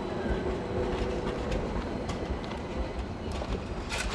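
A train rolling along the track with a steady rumble and scattered sharp clicks from the wheels, and one louder click near the end.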